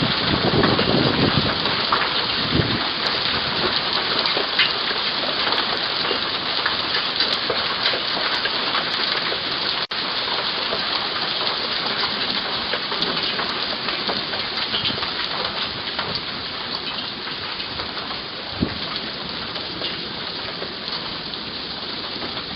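A hailstorm with heavy rain pouring steadily, heard through a Ring video doorbell's microphone, with scattered sharp hits of hailstones. The downpour eases slightly toward the end, and the sound drops out for an instant about ten seconds in.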